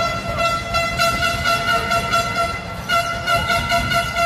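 A horn sounding one steady high note with a brief break about three seconds in, over the murmur of a crowd.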